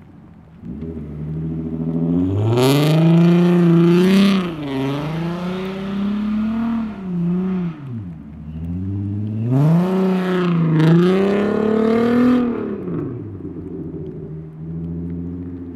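2004 Volkswagen R32's 3.2-litre VR6 engine, tuned and breathing through a test pipe and non-resonated exhaust, revving hard in two long pulls. In each the pitch climbs, wavers up and down as the throttle is worked, then falls back to a low rumble, with a low stretch between the pulls and again near the end.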